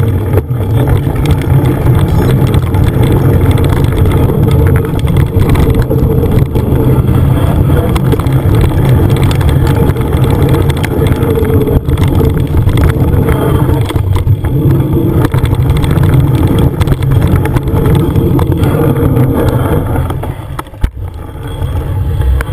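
Loud, steady rumble of riding a mountain bike along a dirt trail: wind buffeting the microphone over the noise of knobbly tyres and the bike rolling over the ground. It eases off briefly near the end.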